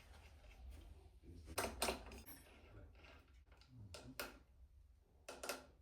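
Sharp mechanical clicks in three quick pairs, from tools and parts being handled during work on a mountain bike, over a low steady hum.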